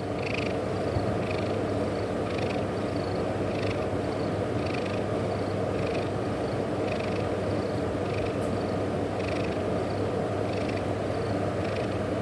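Domestic cat purring steadily, rising and falling with each breath about once a second.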